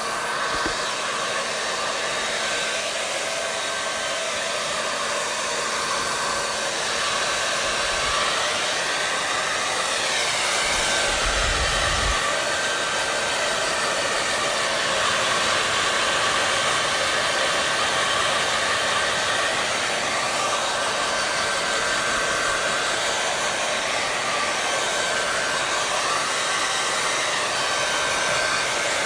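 Hair dryer running steadily: a constant rush of blown air with a faint steady whine.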